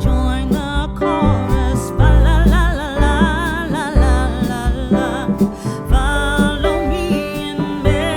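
Background song with a singing voice and guitar over a steady beat.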